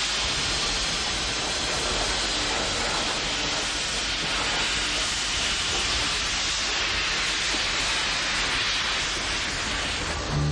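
Steam locomotive venting steam in a loud, steady hiss.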